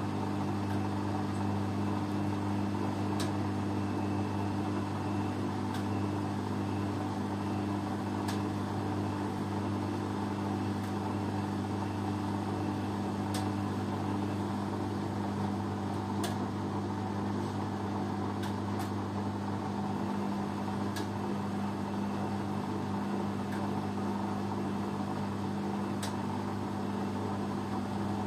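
Beko front-loading washing machine spinning its drum, a steady motor hum with faint sharp clicks about every two and a half seconds.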